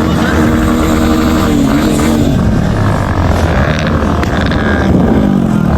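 Motorcycle engine running under way, its pitch holding and then shifting during the first couple of seconds over a steady rumble.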